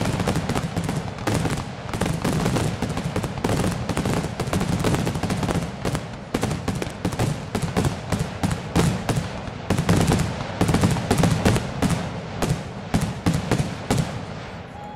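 Fireworks going off in a rapid, continuous barrage of overlapping bangs and crackles with a deep rumble underneath. The bangs thin out and fade near the end.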